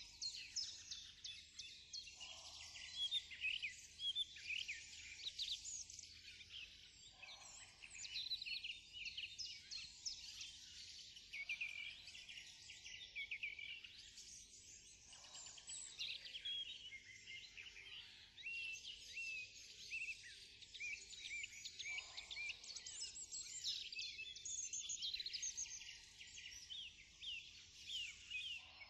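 A dense chorus of many songbirds chirping and twittering continuously, with short calls overlapping one another throughout.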